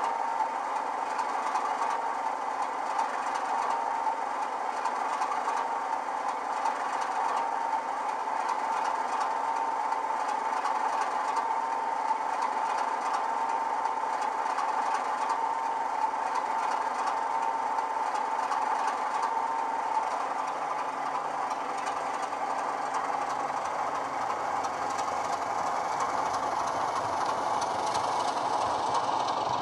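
Sampled Class 33 diesel engine sound from a LokSound 5 DCC sound decoder (SWD sound project), played through a 27mm bass-enhanced speaker in an OO-gauge model locomotive: a steady idle, whose note changes about two-thirds of the way through as the locomotive moves off with its wagons.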